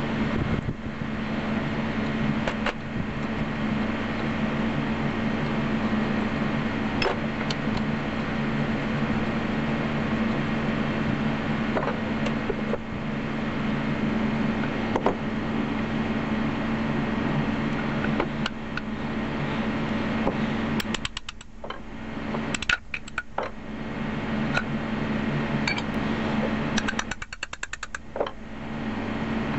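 Metal clinks and knocks as an antique hand-cranked grinder's gear housing is taken apart by hand, with two quick runs of light hammer taps in the last third, the second near the end. A steady low hum runs underneath.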